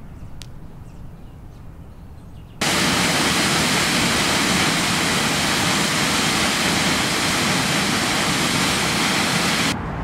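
Waterfall rushing: a loud, steady hiss of falling water that cuts in suddenly about two and a half seconds in and stops abruptly near the end. Before it there is only a faint low rumble.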